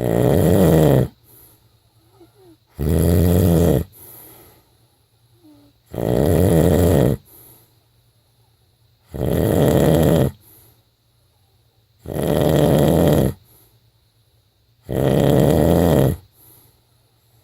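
A person snoring in sleep: six loud snores, each lasting about a second, coming at a steady pace of one every three seconds or so.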